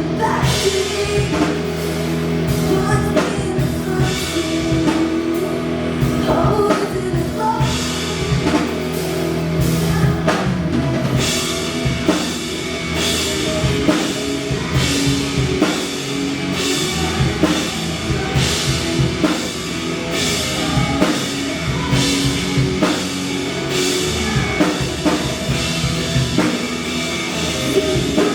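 A rock band playing live with a drum kit and a singing voice, the drums getting busier and heavier about eleven seconds in.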